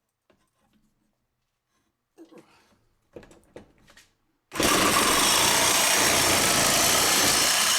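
A few light knocks of handling, then about four and a half seconds in a power tool starts abruptly and runs steadily at full speed, cutting exhaust pipe to length.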